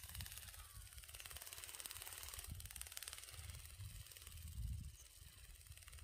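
Wind buffeting the microphone in irregular low rumbling gusts over a faint steady high hiss.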